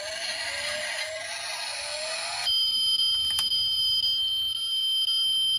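Toy car's electronic sound effects: a noisy sound rising in pitch, then, about two and a half seconds in, a sudden switch to a steady high-pitched electronic tone like a buzzer, with a single click about a second after the switch.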